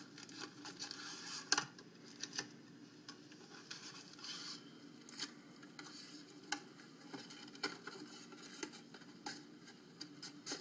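Trading cards and their cardboard and paper packaging being handled: light rustling with scattered clicks and taps, and a short burst of rustling about four seconds in.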